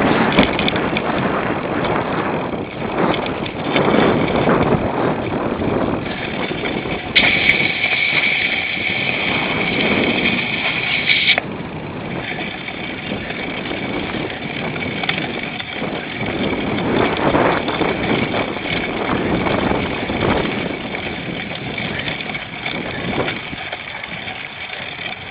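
Cyclocross bicycle ridden hard over rough ground: steady rattling and rushing ride noise. A higher hiss comes in suddenly about seven seconds in and cuts off about four seconds later.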